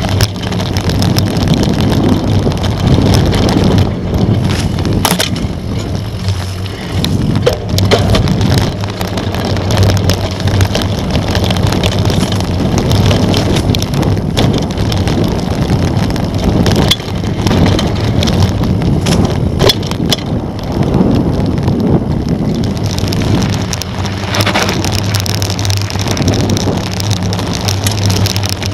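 Mountain bike ridden fast over rough dirt singletrack and gravel: tyres crunching on the ground and the bike rattling, with frequent sharp knocks from bumps, over a steady rush of wind on the microphone.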